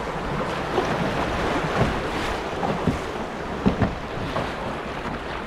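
River water rushing through a stretch of rapids around an open canoe being paddled, with wind buffeting the microphone. A few short thuds come from the paddle strokes.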